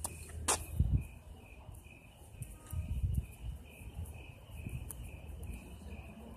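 Crickets chirping steadily in a fast, even pulse, with low thumps about a second in and again around three seconds in.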